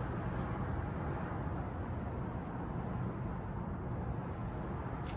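Steady low rumble of outdoor background noise, with one sharp click about five seconds in.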